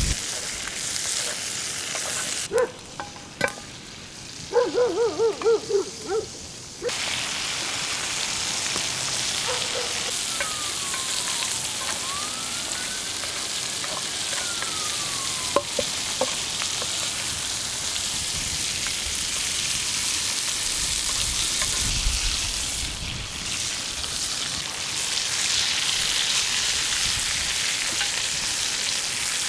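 Food sizzling steadily in a pan over a campfire. About three seconds in the sizzle drops away for a few seconds, and a quick series of short, high pitched calls is heard.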